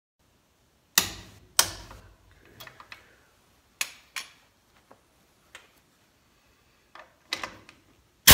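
About a dozen irregular sharp clicks and knocks of metal tools being handled: a torque wrench lifted off a lug nut and set down, then an air impact wrench picked up and its socket fitted onto the nut; the two loudest knocks come about a second in. At the very end the air impact wrench starts hammering, loud and steady.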